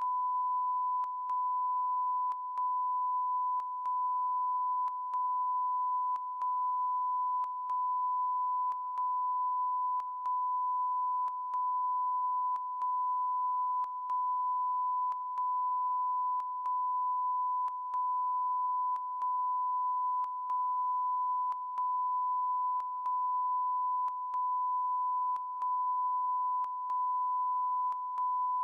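Unending electronic beep: one steady high-pitched pure tone, cut by a brief click-like gap about every second and a quarter, sounding over a TV news broadcast's audio as a fault.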